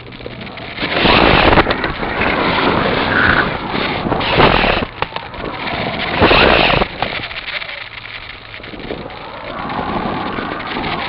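Wind rushing over the onboard camera of an electric model glider in flight, in loud surges of hissing noise about a second in, four seconds in and six seconds in, easing off after. A faint whine rises near the end.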